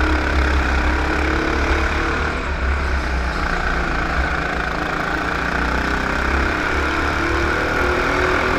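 Racing kart engine running hard, heard from on board the kart, with a steady low rumble and its note drifting up and down a little through the corners.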